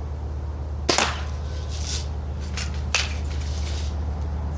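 Two sharp shots from a lever-action BB rifle, about two seconds apart.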